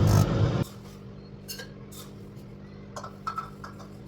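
A microwave oven running with a loud steady hum that cuts off abruptly just over half a second in. After that there is only a faint steady hum and a few light clinks.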